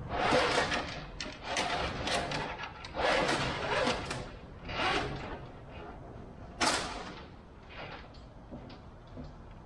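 Steel aircraft control cable being pulled and fed through a wooden fuselage frame, scraping and rattling in several separate bursts, with a sharp short one near the end.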